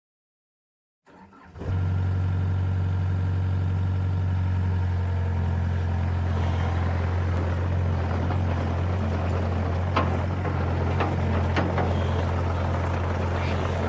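A tractor engine starts up about a second in and settles into a steady idle, with a few light clicks near the end.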